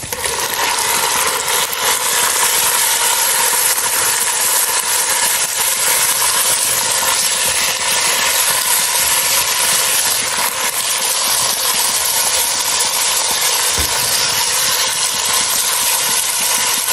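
Raw chicken strips frying in hot oil and garlic in a pot, a loud steady sizzle that swells over the first second or two as the chicken goes in.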